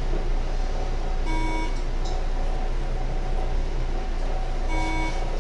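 Breath alcohol testing machine giving two short electronic beeps about three and a half seconds apart, during a breath test. A steady low hum runs under them.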